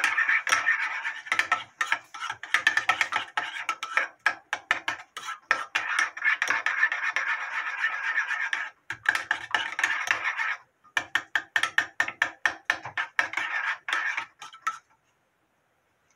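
A metal spoon stirring and scraping a thick mayonnaise-and-ketchup sauce around a glazed ceramic bowl in quick, rapid strokes. There is a short break just before eleven seconds in, and the stirring stops about fifteen seconds in.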